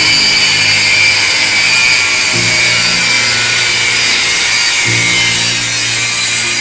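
Power saw cutting steadily, a loud hiss with a high whine that cuts off suddenly at the end, over background music.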